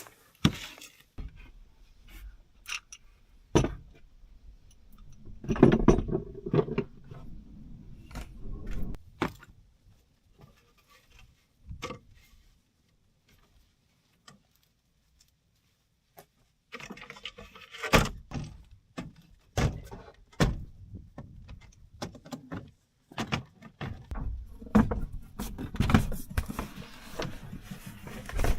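Irregular knocks, clicks and rattles of small objects being handled, with a near-silent lull of a few seconds about midway.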